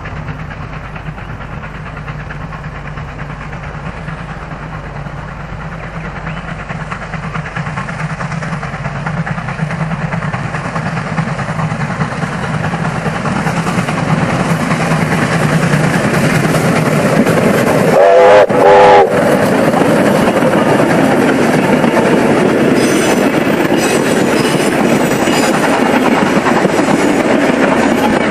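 Steam locomotive J515, a Victorian Railways J class 2-8-0, approaching and growing steadily louder, its whistle blown in two short blasts about eighteen seconds in. The train then runs past close by with its wheels clacking.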